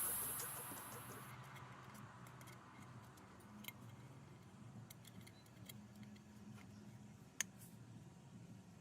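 Faint scattered clicks and light rattles over a low hum, with the clearest click about two thirds of the way in, as music fades out at the start.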